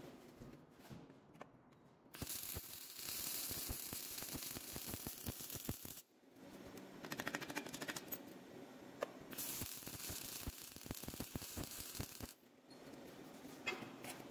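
Metalworking noise: two spells of crackling hiss full of clicks, lasting about four and three seconds, with a short stretch of fast, even ticking between them.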